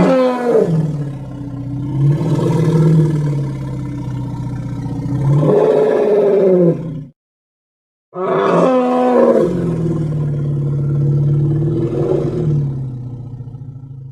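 Ankylosaurus roar sound effect: two long, drawn-out roars, each about seven seconds, with a pitch that dips and rises, and a second's break between them. The second fades out near the end.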